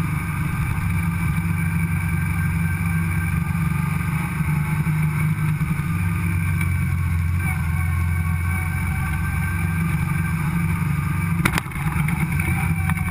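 BMW R1150GS Adventure sidecar rig's boxer twin engine running steadily while riding along. The engine note changes about seven and a half seconds in, and there is a single sharp click about eleven and a half seconds in.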